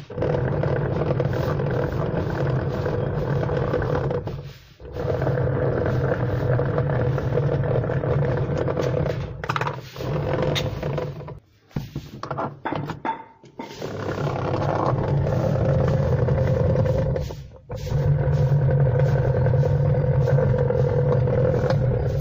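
Washing machine motor running with a steady hum, stopping briefly and starting again several times.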